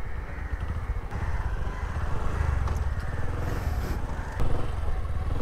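Motorcycle engines running at low speed, a steady low pulsing engine note as the bikes turn and pull away.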